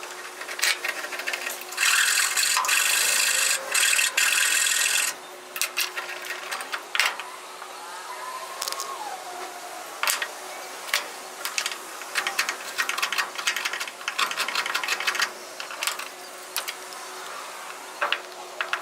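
Tool work on a wooden hammer handle: a small power tool runs steadily for about three seconds, then come many short scraping strokes, like rasping or sanding wood, with scattered knocks.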